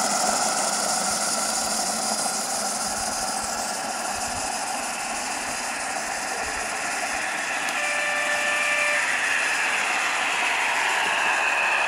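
Small live-steam garden-railway locomotive running past with its train of log wagons and a caboose: a steady steam hiss over the rolling rumble and clatter of small wheels on the rails. About eight seconds in, a short steady whistle tone sounds for about a second.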